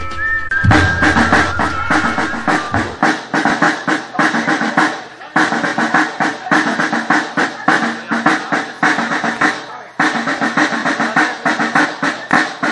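Snare drums of a marching troop, beating a fast, steady rolling rhythm that breaks off briefly about five and ten seconds in. Sustained intro music fades out in the first few seconds.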